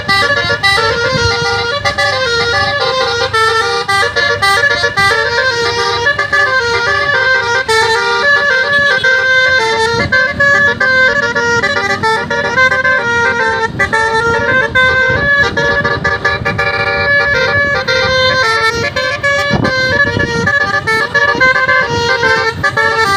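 Bus 'telolet' horn, a Basuri multi-tone air horn, playing a melody: a continuous run of loud horn notes stepping up and down in pitch.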